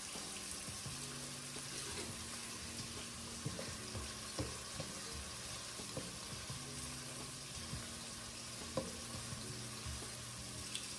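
Chopped onion and garlic starting to sizzle in a hot saucepan, a steady frying hiss, while a spatula stirs them and taps the pot a few times.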